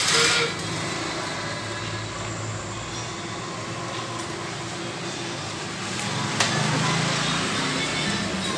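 Steady mechanical background noise, like a fan or passing traffic, with a few light clicks of wire mesh being handled as the parts of a wire fish trap are fitted together.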